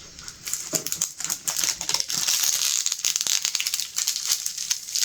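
Crinkling plastic packaging and small bags of diamond-painting drills rattling as they are handled, a quick uneven run of clicks and rustles.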